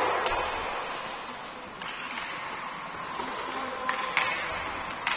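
Youth ice hockey play in an echoing indoor rink. Skates scrape the ice in a steady hiss, broken by sharp clacks of sticks and puck: the loudest comes right at the start, and a few more follow about two, four and five seconds in.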